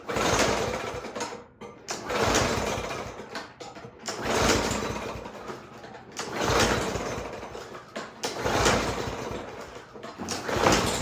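Toro lawn mower engine being pull-started about six times, roughly every two seconds: each pull of the recoil starter cranks the engine briefly, and it never catches.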